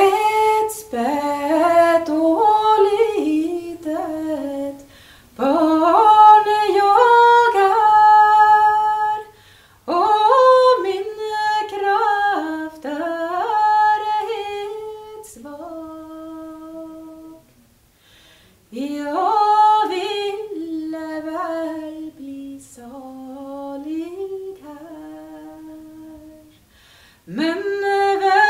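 A woman singing a melody unaccompanied, in long phrases with short pauses between them.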